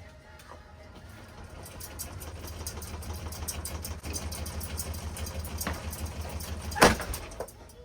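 Ceiling fan motor running at speed, its low hum growing louder over several seconds with fast rattling clicks over it. A single loud bang comes about seven seconds in.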